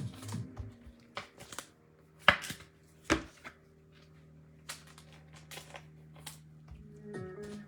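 Trading cards and card packs being handled: scattered taps and clicks, with two louder knocks a little over two and three seconds in. Faint background music runs underneath.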